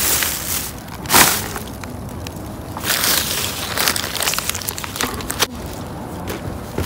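Clear plastic bags and wrapping crinkling and rustling in irregular bursts as hands dig through packaged and loose produce.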